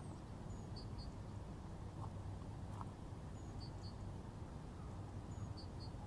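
A small bird's high call, a quick falling note followed by two short double chirps, repeated three times about two and a half seconds apart, over a low steady rumble.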